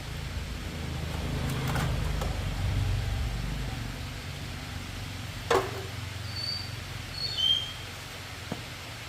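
A motor vehicle engine's low rumble that swells about one to three seconds in and then fades, with a few sharp knocks, the loudest about halfway through, and a few short high chirps near the end.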